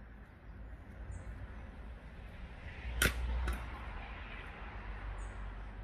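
Outdoor ambience with a steady low rumble, broken midway by two sharp cracks about half a second apart, with a couple of brief high chirps, one early and one near the end.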